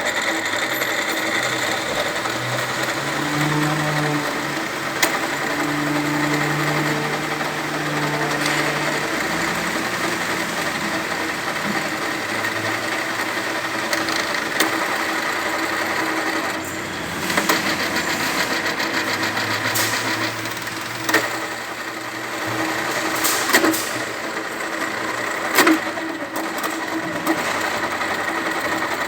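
Gear-head pedestal drill press with a 1 hp motor running steadily, a constant mechanical hum with a few sharp knocks in the second half.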